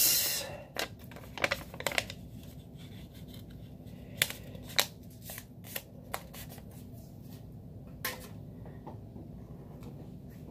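Paper sticky notes rustling as they are handled, with a louder rustle right at the start and then scattered light clicks and taps.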